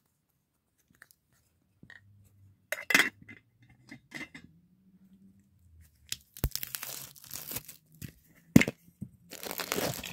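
A Funko Soda collectible tin can being worked open by hand. There are a few light handling clicks, then from about six seconds in a run of scraping and crinkling with sharp metallic clicks and clinks.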